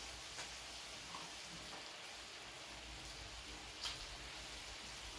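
Pork sizzling steadily on an electric grill plate, with a few faint pops and crackles, the clearest about four seconds in.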